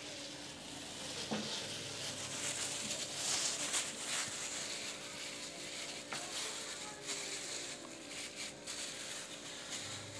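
Plastic food-handling glove crinkling and squelching as a hand rubs oyster sauce over a boiled whole chicken: an uneven crackly rustle, busiest a few seconds in.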